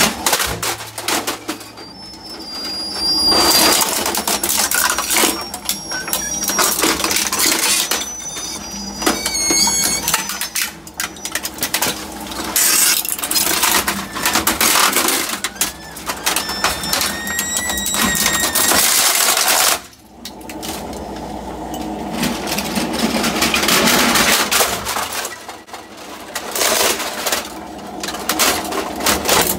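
Twin-shaft industrial shredder's interlocking cutters crunching through a printer: a continuous clatter of cracking plastic and tearing sheet metal over the hum of the machine, with short high metallic squeaks.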